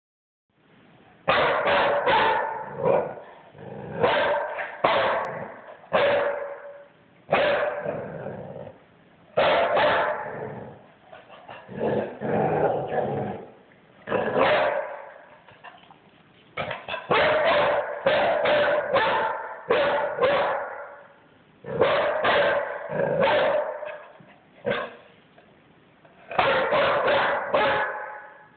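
Springer spaniel puppy barking in repeated bunches of several quick barks with short pauses between. It is alarm barking at an unfamiliar gnome figurine.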